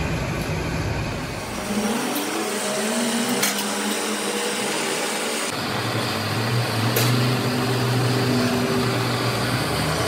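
Gas soldering torch burning with a steady, even hiss, heating the seam of a truck radiator's top tank. Its low rumble changes abruptly about two seconds in and again about five and a half seconds in.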